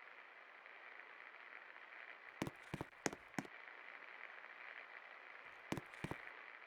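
56-inch Best Electric Works Desire ceiling fan running with a faint, steady whir, broken by a quick run of four clicks and later two or three more.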